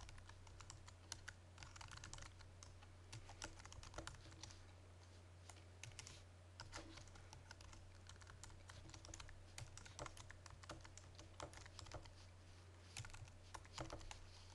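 Faint typing on a computer keyboard: irregular keystroke clicks, with a steady low hum underneath.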